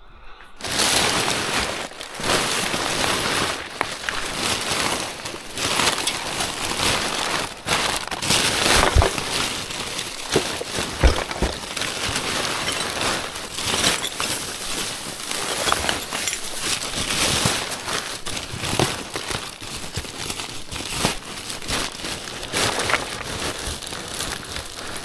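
Gloved hands rummaging through a wheelie bin packed with brown kraft packing paper and plastic bags: continuous rustling and crinkling of paper and plastic, with a few sharper knocks around nine and eleven seconds in.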